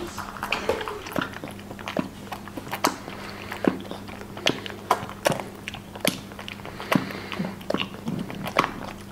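Jaguar cub suckling milk from a baby bottle: wet sucking and smacking clicks at a steady pace, a little more than one a second.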